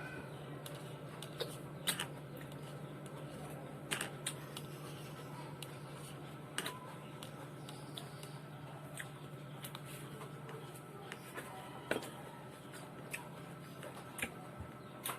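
Eating fruit salad with a spoon: scattered light clicks and taps of the spoon against the container, a few sharper ones every couple of seconds, over a steady low hum.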